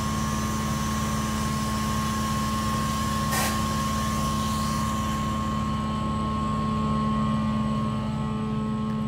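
Zuhafa 720P foldable toy quadcopter's motors and propellers whirring steadily as it hovers low, a constant hum with a higher whine over it. A brief hiss comes about three seconds in.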